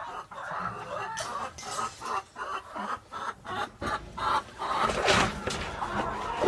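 Several hens clucking and calling in short, broken notes, with rustling and a few knocks about two-thirds of the way through.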